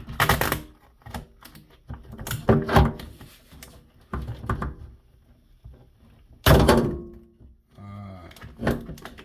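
Skateboard griptape being pulled off the deck by hand, giving a few short, loud rips and thuds as the strong adhesive resists.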